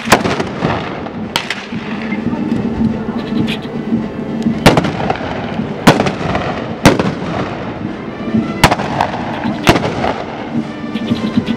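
Blunderbusses fired one after another in a ragged volley: about eight loud single shots at uneven intervals over some ten seconds.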